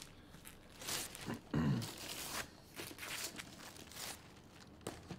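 Wrapping paper being torn and crumpled off a gift box, in several short rustling bursts, with a brief low voiced hum about one and a half seconds in.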